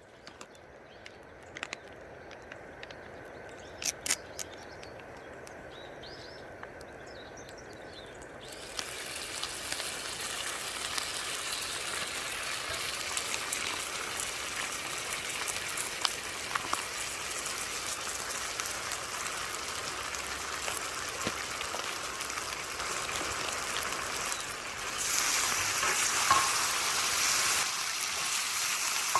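Food sizzling in a hot pan. The sizzle starts about eight seconds in after a few light utensil clicks, and turns louder and brighter near the end, with scattered clinks throughout.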